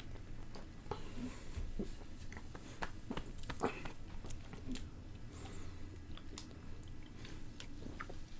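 A person gulping down a bottle of Sprite: irregular wet swallowing clicks and gulps, mostly in the first half.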